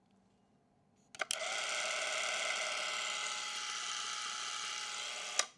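Hanimex Loadmatic M200 Super 8 film camera's electric drive motor running when the trigger is pressed: a click about a second in, a steady whir for about four seconds, and a sharp click as it stops near the end. The camera runs on fresh batteries, so its mechanism works.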